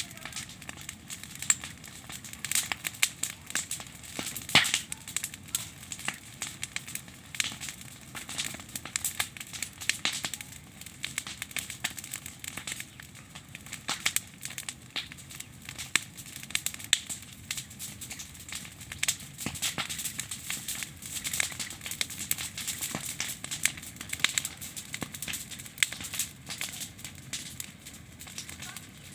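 Wood campfire of branches burning, crackling steadily with many irregular sharp pops and snaps.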